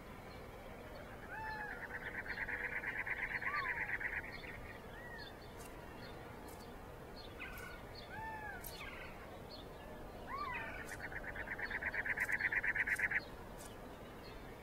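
Wild birds calling: two long, fast trills, each about three seconds long and growing louder, with short upslurred chirps between them.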